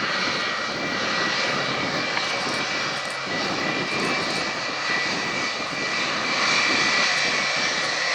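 Jet airliner engines running loud and steady, a high whine over a broad rush.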